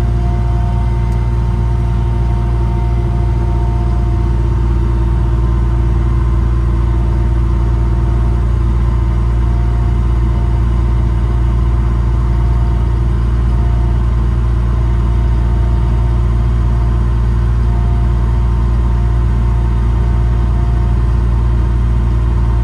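Ingersoll Rand hydraulic air compressor running steadily off the truck's hydraulics, together with the Cummins 5.9 diesel driving it: a constant, even mechanical drone with a steady hum, while the compressor builds air toward its 160 psi cut-off.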